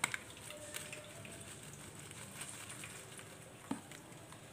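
Faint steady sizzle of okra frying in oil in a pan on low-to-medium flame, with a few light taps of a steel spoon against a bowl.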